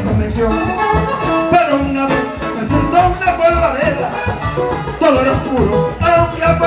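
Live vallenato band music: button accordion melody over bass guitar and hand percussion with a steady beat, and a man singing into a microphone.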